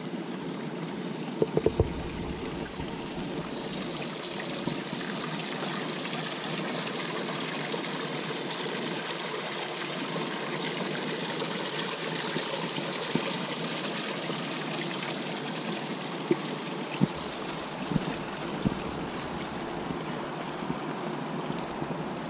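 Steady rain falling through woodland, a continuous hiss that swells for a while in the middle, with a few sharp taps scattered through it.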